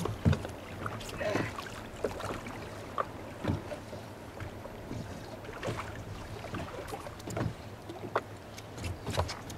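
Boat on open water: a low steady hum under wind and water noise, with scattered light clicks and knocks as a conventional rod and reel is worked against a hooked fish.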